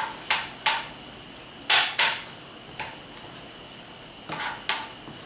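A spatula scraping and knocking against a skillet as a simmering beef-and-pepper mixture is stirred: about eight short, sharp strokes at an uneven pace, with a faint steady hiss of the simmering food beneath.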